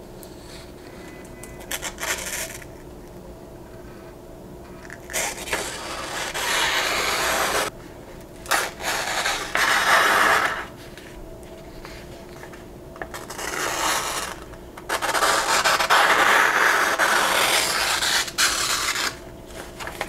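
A sharp plain-edge steel knife blade slicing through a hand-held sheet of printer paper in a sharpness test: a brief stroke, then four long slicing cuts of two to four seconds each with short pauses between.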